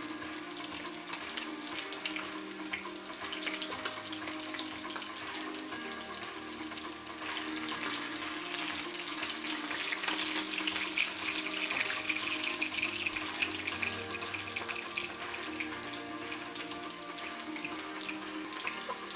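Whiting fillets and garlic frying in oil in a pan on low heat: a steady sizzling hiss with small crackles, a little stronger partway through. Background music with held notes plays underneath.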